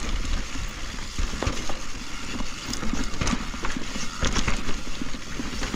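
Mountain bike riding through a rocky section of dirt trail: tyres rolling and crunching over dirt and rock, with irregular knocks and rattles from the bike as it hits the rocks.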